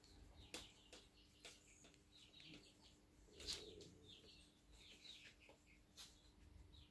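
Near silence: quiet room tone with a faint steady hum, a few light clicks and faint short high chirps.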